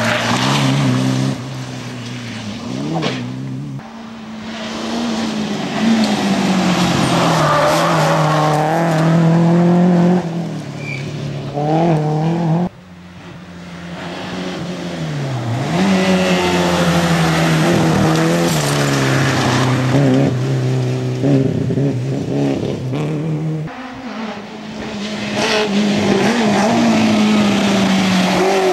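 Peugeot 205 and 309 rally car engines revving hard through corners, the pitch climbing and dropping with throttle and gear changes. The sound breaks off abruptly twice as one car's pass gives way to the next.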